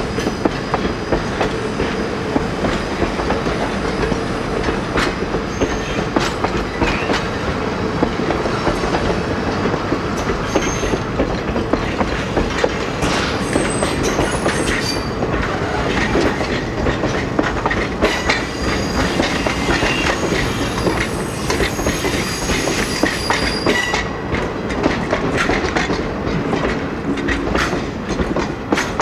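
Vintage steel passenger coaches rolling past, their wheels clicking rhythmically over rail joints with a steady rumble. Thin, high-pitched wheel squeals come and go through the middle of the passage.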